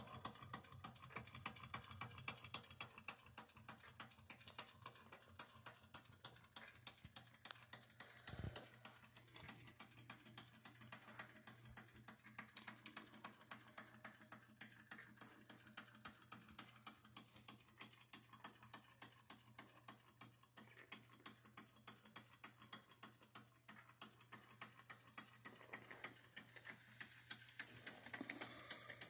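Wilesco D11 toy live steam engine running, giving a faint, fast, even ticking as it drives a model oil pump jack through its reduction gearing.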